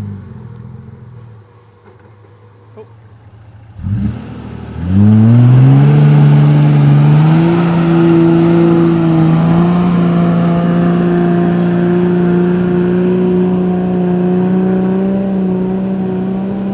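Toyota Land Cruiser 80 series engine working under load on a steep climb. Its sound dies away in the first second or so, and after a short quiet gap it returns loud about five seconds in, climbing in pitch and then held steadily at high revs.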